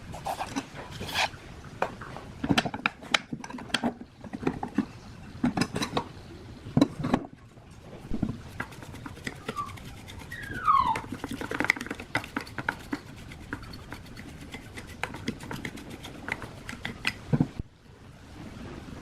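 Irregular taps, clicks and knocks of hand work on metal parts, with short scrapes and a brief falling squeak about ten seconds in.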